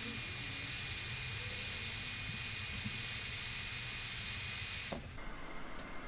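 Hot air gun running: a steady blowing hiss with a thin whine, switched off suddenly about five seconds in. It is heating the part so that an interference-fit pivot bush can be pressed in.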